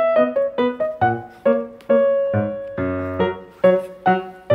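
Background piano music: a melody of separate struck notes, a few each second, each fading quickly.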